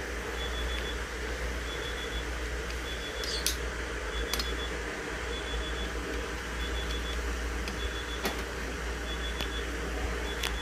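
Pot of nilaga (pork and vegetable stew) simmering on the stove, heard as a steady low hiss and hum. A faint short high beep repeats about once a second, and there are a couple of soft clicks.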